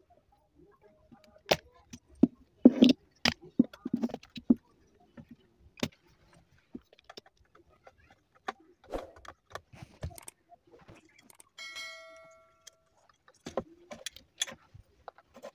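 Scattered clicks and knocks of small metal tools on a circuit board while the woofer amplifier IC is being desoldered, with one short metallic ring about twelve seconds in.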